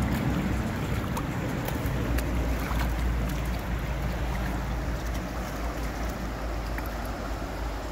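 River current rushing over a riffle around a drifting kayak, with wind buffeting the microphone in a steady low rumble.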